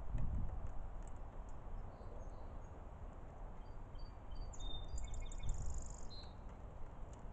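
Outdoor ambience: a steady low rumble with scattered short, high chirps and trills from small birds, busiest about two-thirds of the way through.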